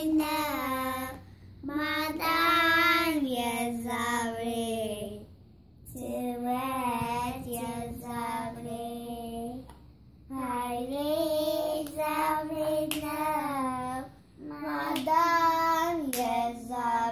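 A child singing a mezmur, an Ethiopian Orthodox hymn, in four phrases of about four seconds each with short breaks between them, accompanied by a few hand claps.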